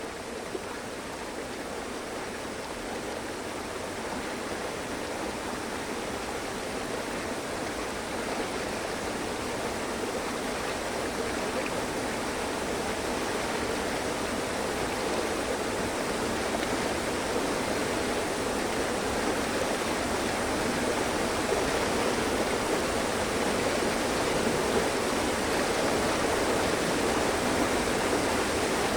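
Mountain stream flowing: a steady, even rush of water that slowly grows louder.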